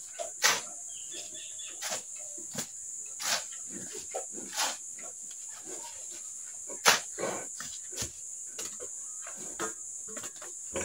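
A steel shovel scraping and scooping through a pile of wet cement mix on a concrete floor, in short strokes every second or so, the loudest about seven seconds in. A steady high insect drone runs underneath.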